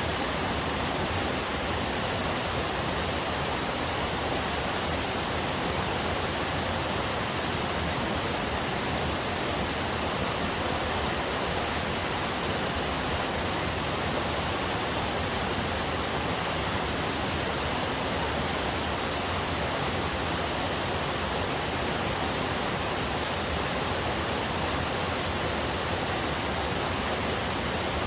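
Small forest waterfall and river rushing water, a steady, even hiss of falling and flowing water with no breaks.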